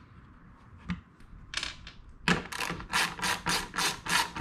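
Hand ratchet with a 5/16 socket clicking as it backs out a screw: a lone click and a short rattle, then from about halfway in a fast, even run of clicks, about five or six a second.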